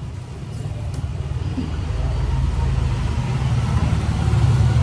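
Low rumble of a motor vehicle's engine, growing steadily louder over a few seconds.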